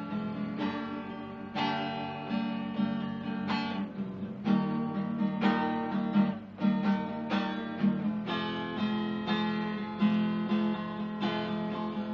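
Acoustic guitar strumming chords, each chord ringing on before the next.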